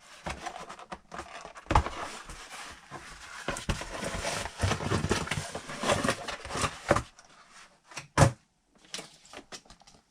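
Rustling and knocking of packaging and parts being handled while an RC truck is unboxed, with scattered sharp knocks near the end.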